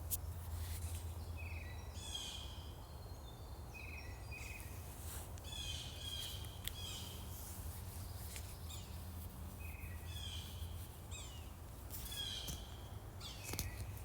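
Songbirds singing in woodland: short phrases of quick chirps and falling notes, repeated about every three to four seconds, over a steady low rumble.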